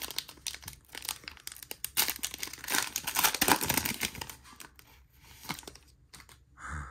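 Foil trading-card pack being torn open and crinkled by hand: a dense crackling for the first four seconds or so, then quieter rustles and clicks as the cards come out.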